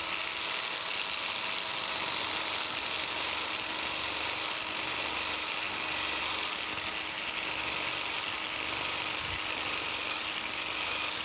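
Biax electric power scraper running steadily, its reciprocating blade cutting cast iron on the planer-base ways to lay in a crosshatch pattern.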